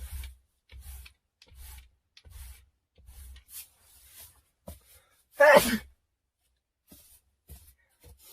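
A person sneezes once, loudly and briefly, about five seconds in. Faint soft thumps come before it.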